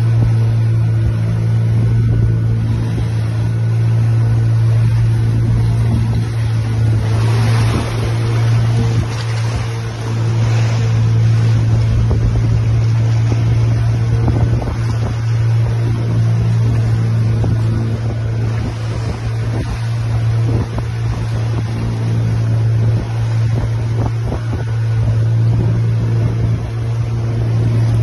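Small wooden boat's motor running at a steady, unchanging pitch, a constant low hum, with the rush of water along the hull.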